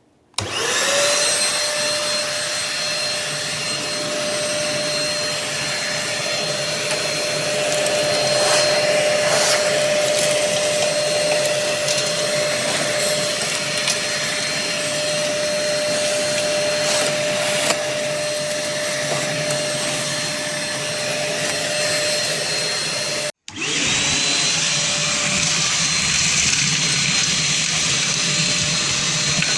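Ash vacuum cleaner switching on and spinning up to a steady motor whine and rush of air. Late on it cuts off abruptly and starts up again with the same rising whine.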